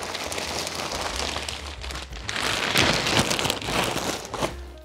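Packaging rustling and crinkling as it is handled, in a dense crackle that is loudest about halfway through.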